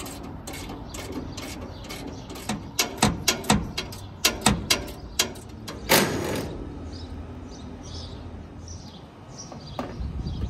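Socket wrench ratcheting in short irregular runs of sharp clicks, working loose a 9/16 condenser-fan-motor mounting bolt. About six seconds in comes one loud clatter, followed by faint repeated high chirps.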